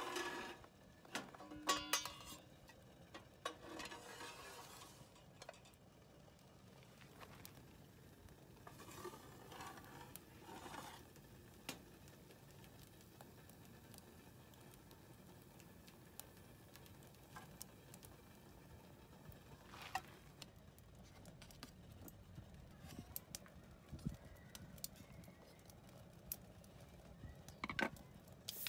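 Light clinks, clatter and scrapes of metal being handled: the steel door of a small camping oven stove and a metal pan and plate. They come in a cluster in the first seconds and again near the end, with long quiet stretches and a few lone clicks in between.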